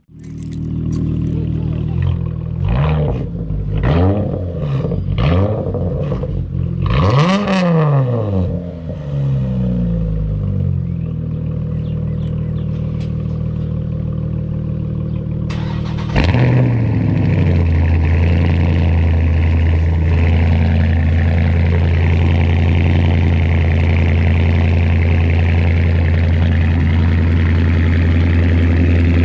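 Vehicle engine revved several times, its pitch climbing and falling, then running steadily; about 16 seconds in it changes abruptly to a louder, steady low engine drone.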